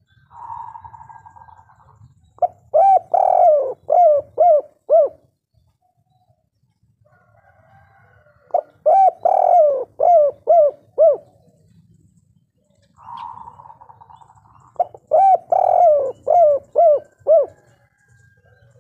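Spotted dove singing its cooing song three times, about six seconds apart. Each phrase opens with a soft rolling purr, then a loud drawn-out coo, and ends in three short clipped coos: the 'kuk 3' song type.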